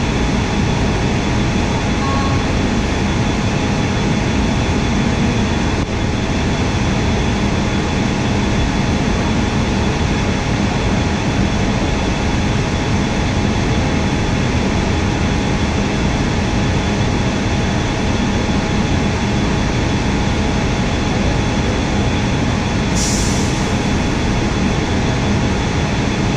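Steady hum and rush of a JFK AirTrain car standing at a station platform, heard from inside the car, with a few faint steady tones in it. A short, high hiss cuts in near the end.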